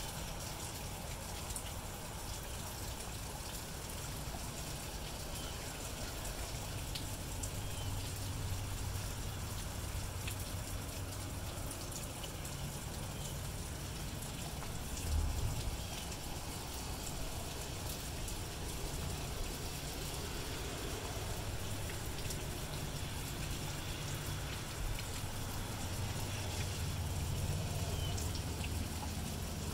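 Steady rain falling, a continuous hiss with scattered drops and dribbles, over a low rumble that swells at times; a brief low thump about halfway through.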